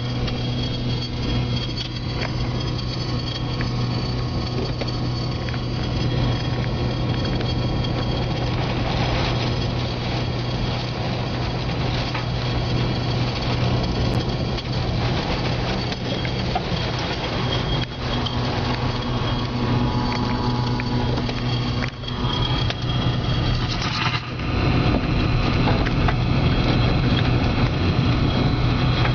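Tornado wind and rain battering a car, heard from inside the cabin: a steady roar over a low hum, with a few sharp knocks in the second half, growing louder near the end.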